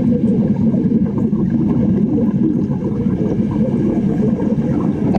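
Underwater wet stick-welding arc burning on a steel plate: a steady, dense, muffled crackling and bubbling rumble, heard underwater through a camera on the diver's gear.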